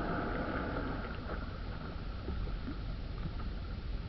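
Wind rumbling on the microphone over small waves lapping at a kayak: an even, low hiss with faint irregular ticks.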